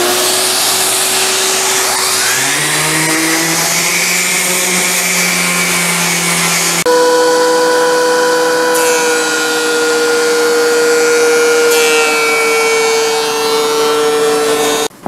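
A Shop-Vac vacuum motor running up to speed, with a DeWalt random orbit sander running for sanding a chair seat. About seven seconds in, the sound changes abruptly to a DeWalt benchtop thickness planer running with a board fed through it.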